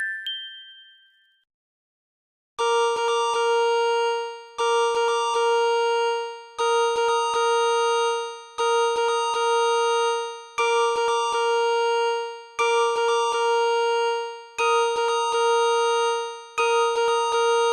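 Synthesized Android 10 ringtone melody: a short figure, a few quick notes over a held tone, repeating every two seconds, eight times. It starts after the previous tune dies away and a short silence.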